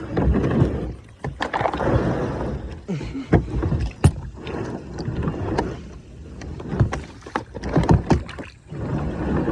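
Kayak paddle strokes: water splashing and swishing off the blades in repeated surges every second or two, with a few sharp knocks, the strongest about four seconds in.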